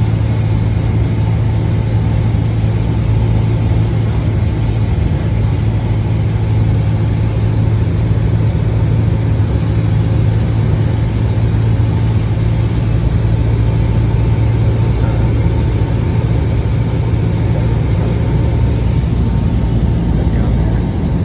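Cessna 172's piston engine and propeller droning steadily, heard from inside the cabin in flight.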